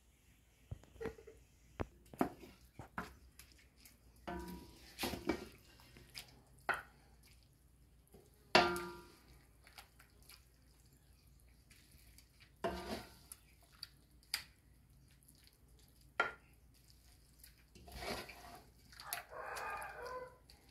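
A wooden spoon scraping and knocking against an aluminium pan and a glass dish as thick, sticky papaya sweet is scooped out and pressed into the dish: scattered clatters and taps, the sharpest about eight and a half seconds in.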